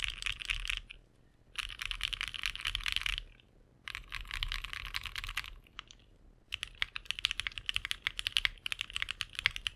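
Typing on a Bakeneko 60 custom keyboard with lubed Mode Reflex switches and GMK keycaps. Three quick bursts of keystrokes with short pauses between them, then separate keystrokes over the last few seconds.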